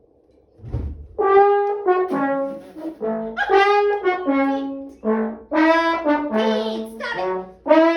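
Trombone playing a tune of held notes that step up and down in pitch, one after another, after a low thud.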